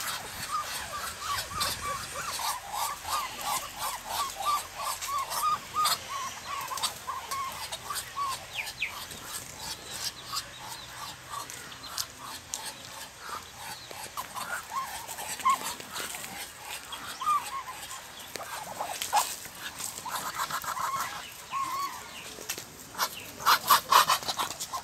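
Short, high-pitched animal calls. A quick run of them, three or four a second, fills the first several seconds; after that they come scattered, and a burst of louder calls comes near the end.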